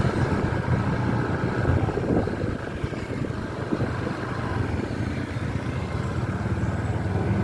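Road traffic with buses driving by: steady engine and road noise, dipping a little about three seconds in.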